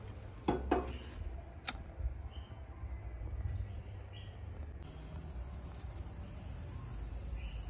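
Disposable lighter struck twice in quick succession about half a second in, with another sharp click about a second later, as it is lit to melt the cut ends of the rope. Crickets chirp steadily underneath, over a low hum.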